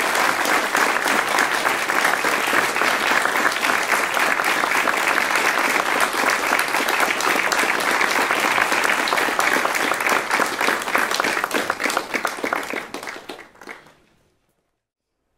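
Audience applauding steadily, thinning out near the end and then cutting to silence.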